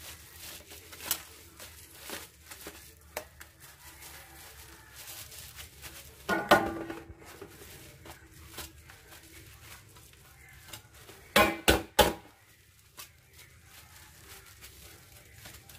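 A plastic-gloved hand folding meringue into chiffon cake batter in an aluminium basin: the glove crinkles, with scattered knocks against the basin. There is a louder clatter about six and a half seconds in, and three sharp knocks in quick succession near the end.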